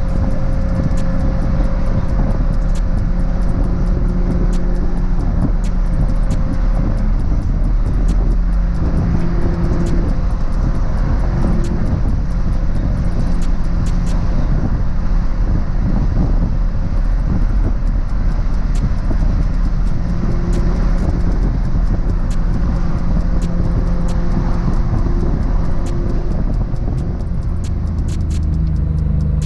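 Nissan GT-R R35's 4.1-litre twin-turbo VR38 V6 running steadily while the car drives, its engine and exhaust tone mixed with road and tyre noise, without hard revving.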